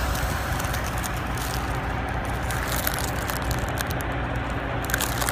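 Steady low vehicle-engine rumble, with faint small clicks and crackles over it.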